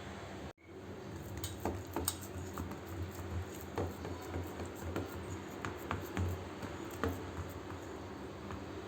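Scattered light clicks and taps of kitchen work over a steady low hum, after an abrupt cut about half a second in.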